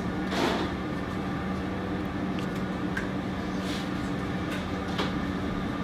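Steady low hum of kitchen equipment, with a few faint light clicks.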